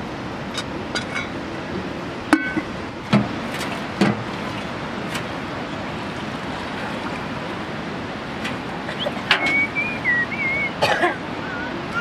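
Steady rushing of a river, with a few sharp knocks and clinks of metal cooking pots about two to four seconds in, and a few short high wavering calls near the end.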